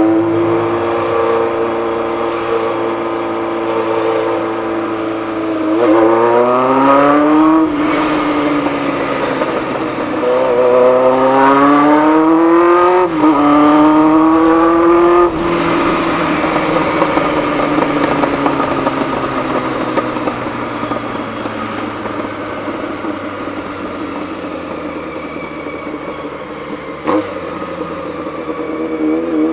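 Honda CBX 750's inline-four engine under way. It revs up in three rising sweeps, about six, ten and thirteen seconds in, each ending in a sudden drop in pitch. It then runs on with a steady drone that slowly falls in pitch, and picks up again near the end.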